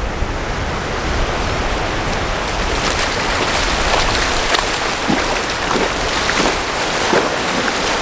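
Ocean surf washing up the beach, with footsteps splashing through the shallow wash about once or twice a second from about three seconds in.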